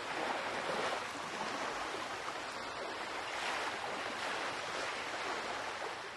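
Seawater rushing and splashing steadily along the hull of a sailboat under way, mixed with wind noise.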